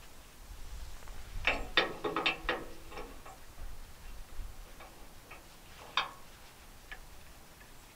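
Metal clinks and clicks of tractor hitch hardware being handled: a quick run of clanks with a brief metallic ring about one and a half to three seconds in, a few light ticks, then a single sharp click about six seconds in.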